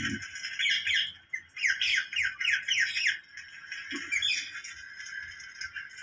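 Rose-ringed parakeet calling: rapid runs of high, harsh, down-slurred squawks, thickest from about one and a half to three seconds in.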